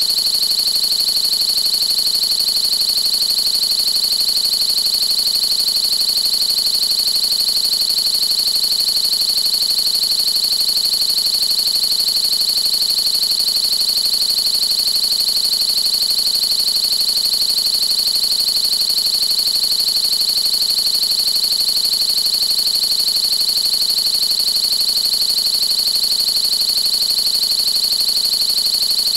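Continuous synthesized high-pitched tone, shrill like an alarm whine, holding perfectly steady with no rhythm or change in pitch or loudness.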